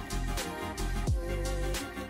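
Background music with a steady beat: a deep kick drum that drops in pitch, a bass line and sharp hits over it.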